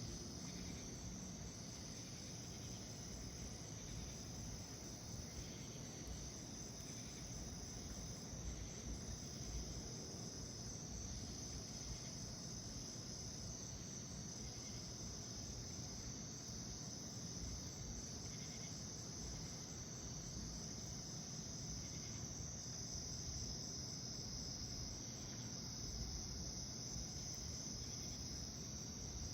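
Night insects trilling: one steady high-pitched trill and another pulsing on and off every second or two, over a continuous low rumble.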